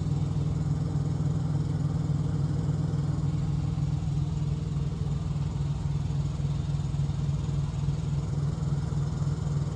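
Semi truck's diesel engine idling, a steady low hum.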